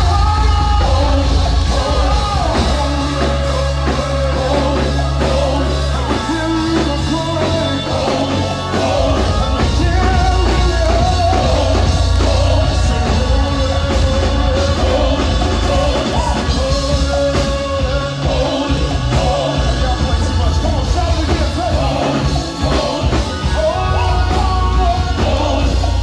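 Loud live worship music: several singers on microphones over heavy bass, amplified through PA speakers.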